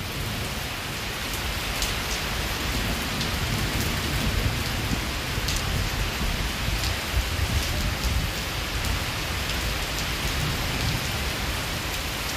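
Torrential monsoon rain pouring steadily onto a lawn, paving and fencing: a dense, even hiss with scattered close drop ticks, under a flickering low rumble of strong wind gusting on the microphone.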